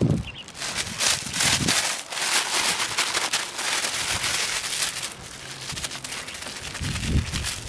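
Plastic bag of damp peat moss crinkling and rustling as it is handled and twisted shut, with a couple of soft low thumps near the end.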